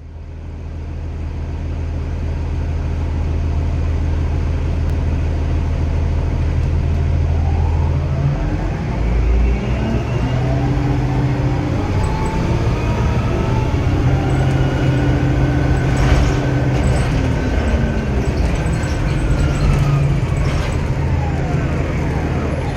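Orion VII Next Generation hybrid bus, with its Cummins ISB diesel running steadily. About eight seconds in, the BAE Systems HybriDrive's electric whine rises in pitch as the bus accelerates, holds, then falls again as it slows near the end.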